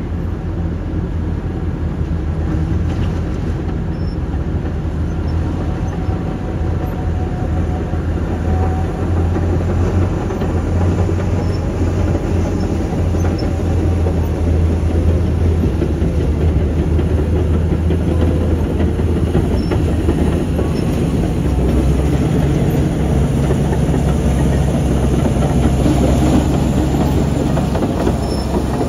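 Heavy diesel mining machinery running with a loud, steady low drone: a Cat 6020 hydraulic excavator digging coal, with heavy equipment close by. The engine note shifts lower about two-thirds of the way through.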